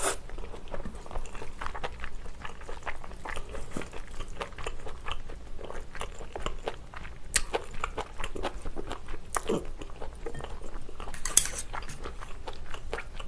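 Close-miked mouth sounds of a person chewing stir-fried pork tripe (gopchang) and glass noodles: wet, sticky chewing and smacking in a steady stream of small clicks, with a few sharper clicks along the way.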